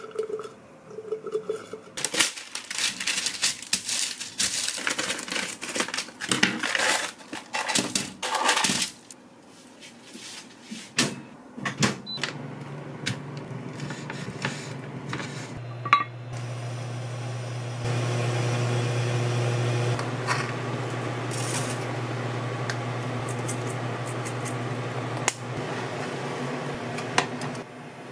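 Kitchen prep sounds: a flurry of clattering and knocks, then a knife tapping through bacon on a wooden cutting board, over a steady low appliance hum that fills the second half and grows louder for about two seconds past the middle.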